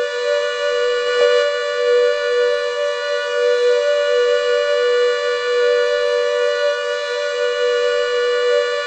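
CS8 siren sounding a steady, held two-note tone that does not rise or fall.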